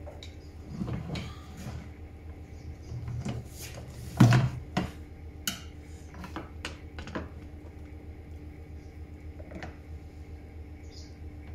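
Clicks, scrapes and knocks of a screwdriver and hands working on a plastic knapsack sprayer tank as a rubber seal is pried into its opening. The loudest is a single knock about four seconds in, followed by a run of short clicks, over a steady low hum.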